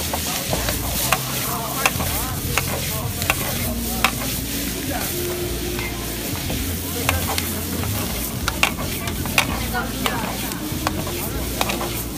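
A metal ladle stirring greens in a hot steel wok, with a steady frying sizzle and irregular sharp clinks of the ladle against the pan about once a second.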